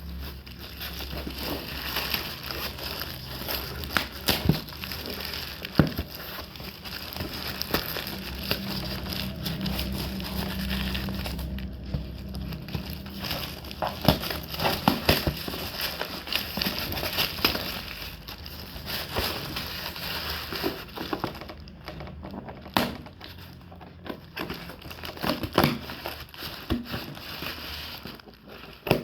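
Gift wrapping being opened by hand: continuous crinkling and crumpling with many sharp crackles.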